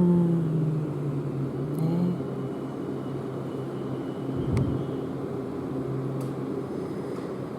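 Steady low mechanical hum, with a single muffled firework boom about four and a half seconds in.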